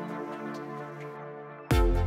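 Electronic background music: a sustained synth chord fading out, then deep bass and drum hits coming in suddenly near the end.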